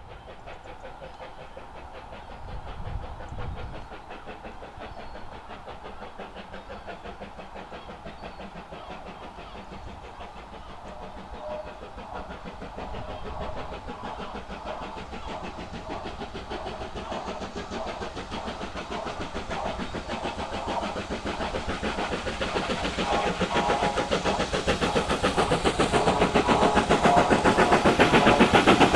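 BR Standard Class 7 'Britannia' 4-6-2 steam locomotive 70000 accelerating with a train, a rapid run of exhaust beats that grows steadily louder as it approaches.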